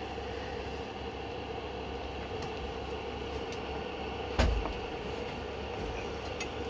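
Steady background hum and hiss, with a few faint clicks as the battery charger's mode button is pressed and one heavy thump about four and a half seconds in.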